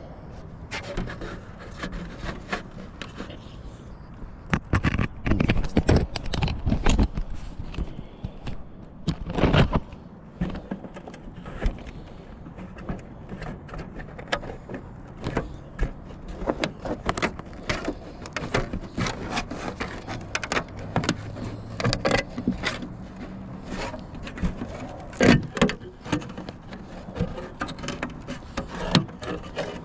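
Irregular scraping, rattling and knocking of hands and tools working at a clogged dryer vent on a roof, with a few louder knocks.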